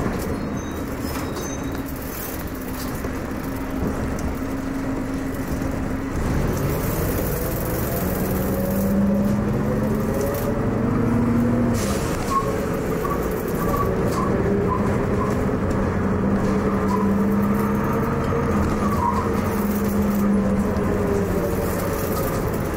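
MCW Metrobus double-decker's Cummins diesel engine pulling the bus away and gaining speed, heard from the upper deck. The engine note rises steadily, drops with a gear change about halfway, then climbs again.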